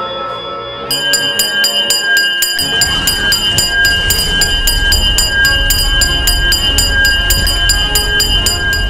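An alarm bell ringing over and over at about four or five strikes a second, sounding a squadron scramble, over music; a deep rumble comes in underneath about three seconds in.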